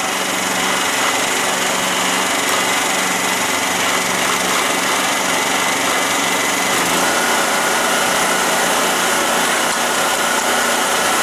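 Yamaha EF2800i inverter generator's single-cylinder four-stroke engine running steadily. About seven seconds in, economy mode is switched off and the engine steps up to its full speed of roughly 3600 rpm, adding a steady higher whine.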